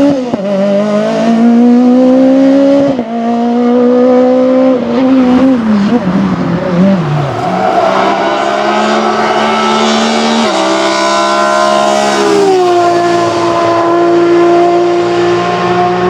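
Rally car engine run hard, its pitch climbing and then dropping sharply at gear changes about three and five seconds in. The note then falls away, rises and holds high, and glides down to a steady lower note for the last few seconds.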